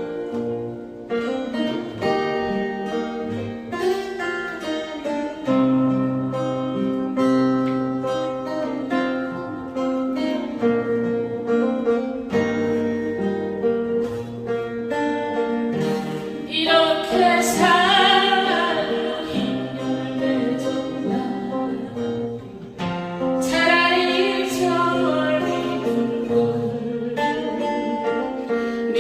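A song with plucked acoustic-guitar accompaniment. A singing voice with strong vibrato comes in about halfway through and sings two long phrases.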